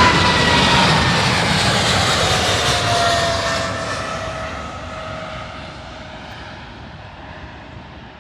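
Boeing 777-300 jet engines at takeoff power as the airliner passes and moves away. The whine glides slowly down in pitch and the noise fades steadily.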